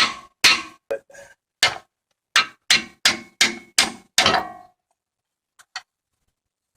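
Hammer striking metal: a series of about nine blows, each with a short metallic ring, that stop about four and a half seconds in.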